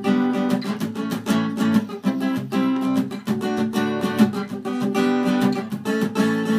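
Acoustic guitar strummed in a steady rhythm, chords only with no singing: an instrumental break in an unplugged song.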